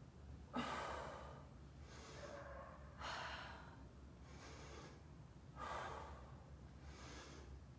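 A woman breathing in time with her crunches: three louder breaths about two and a half seconds apart, with fainter breaths between them.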